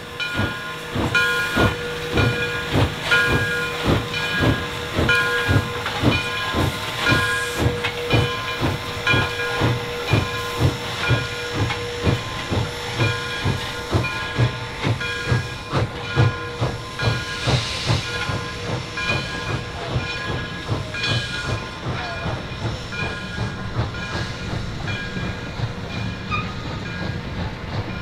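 Steam locomotive working, its exhaust chuffing in a steady beat of about two to three a second.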